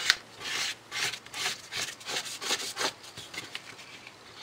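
Plastic spreader scraping and smearing Bondo body filler mixed with hardener across a sheet of paper, in quick back-and-forth rubbing strokes, several a second, that ease off near the end.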